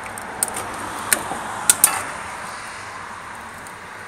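Wood fire burning in a rocket stove's feed tube, a steady rushing hiss of the draft, with four sharp clicks or knocks in the first two seconds.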